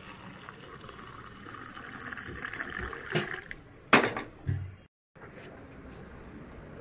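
Milk being poured into a ceramic mug over Horlicks powder: a steady pouring hiss for about three and a half seconds. It is followed by two sharp knocks around three and four seconds in, and a dull thump.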